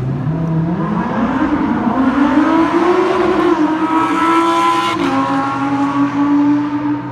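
Supercar engine accelerating hard: revs climb steeply for about three seconds and hold, then fall sharply at a gear change about five seconds in, and the engine runs on steadily at the lower pitch.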